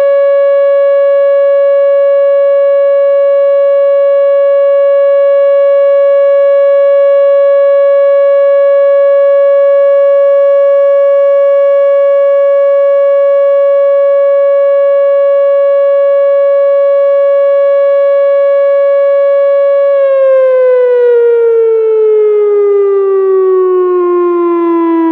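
Whelen outdoor warning siren sounding a steady alert tone in a test, holding one pitch for about twenty seconds. About twenty seconds in, the pitch falls smoothly as the tone winds down.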